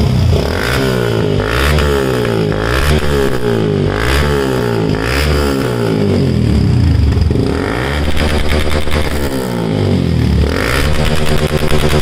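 Yamaha FZ motorcycle's single-cylinder engine revved through an aftermarket Akrapovic slip-on muffler, with quick throttle blips about once a second. From about eight seconds in, the revs are held longer.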